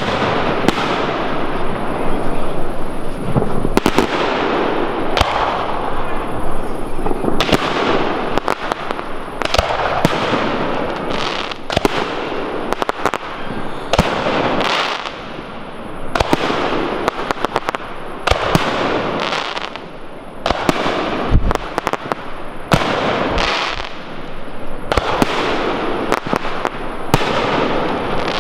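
Aerial shells of a professional fireworks display bursting overhead in quick succession: a running series of sharp bangs, each trailed by a rush of noise.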